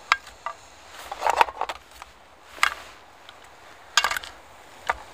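Utensil knocks and short scrapes against a metal mess tin as chopped garlic and onion are put in, in a few separate clatters.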